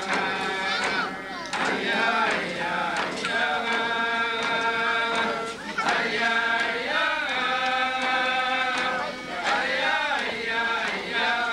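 Yup'ik dance song: a group of voices chanting in unison, with long held notes broken by short breaths.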